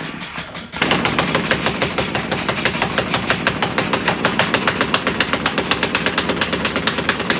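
Impact wrench hammering in a fast, even rattle of blows, starting about a second in after a brief lull.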